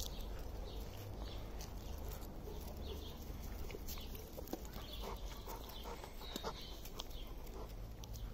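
Scattered clicks and scrapes from a puppy's claws and paws on brick paving as it chases a dragged flirt-pole lure, with a few brief high chirps, over a low steady rumble.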